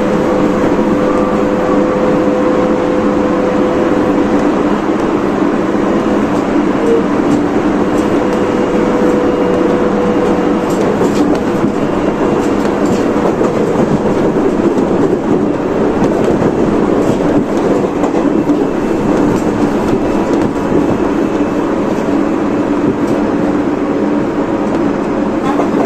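Tobu 30000 series electric train running at a steady speed, heard inside the car: a constant rumble of wheels on rail with a steady low hum and occasional clicks from the rail joints.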